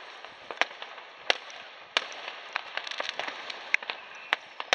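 New Year's fireworks: rockets and firecrackers going off in irregular sharp bangs and cracks, a loud one about every second among many fainter ones, over a steady background hiss.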